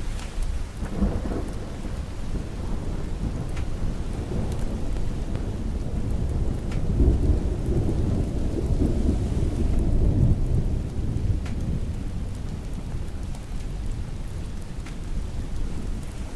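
Steady rain with rolling thunder: a deep rumble swells about halfway through, then slowly fades back under the rain.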